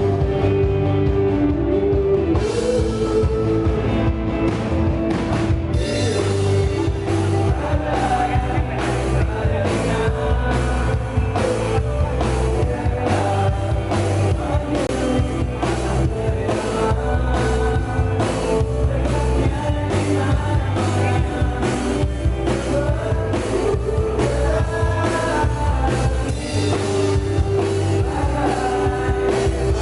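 Rock band playing live, with drum kit, bass and guitar keeping a steady beat and a voice singing over it.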